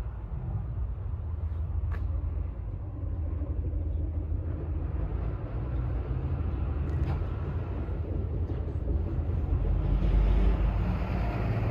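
Rice combine harvester engine running steadily with a low rumble, getting a little louder about ten seconds in.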